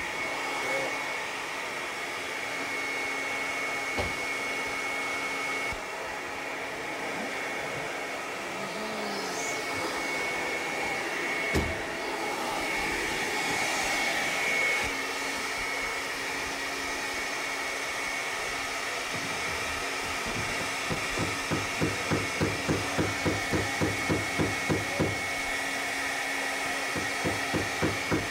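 Steady whirring noise like a blower or vacuum, with a faint high whine over it. From about three quarters of the way in, a run of regular knocks, about two a second, pausing briefly before carrying on.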